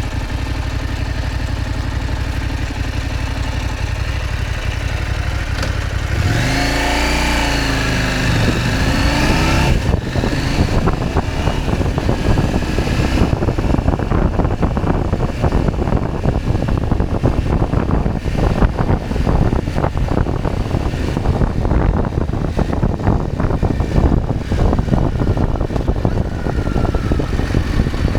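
KTM 790 Adventure's parallel-twin engine idling, then revving up with rising pitch as the bike pulls away about six seconds in; from about ten seconds on the engine runs under way beneath heavy wind noise on the microphone.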